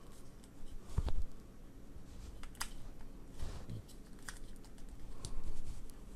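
Small clicks and knocks of wireless earbuds being handled and set into their plastic charging case, with a dull thump about a second in and a sharp click a little later.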